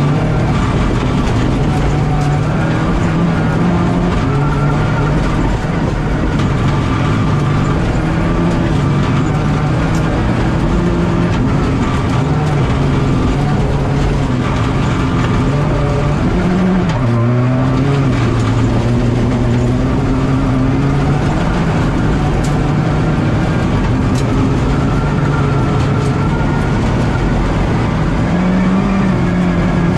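Rally car engine at speed heard from inside the cockpit, its pitch repeatedly climbing and stepping through gear changes, dropping sharply about halfway through before climbing again, over a steady rush of road and tyre noise.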